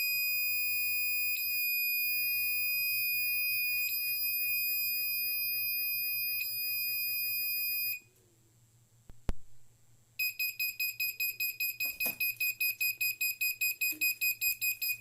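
Piezo buzzer on an Arduino Uno sounding a steady high-pitched tone that cuts off about eight seconds in. After a short silence broken by a single click, it resumes as a rapid string of short beeps at the same pitch: the buzzer's pattern changing once the newly uploaded code runs.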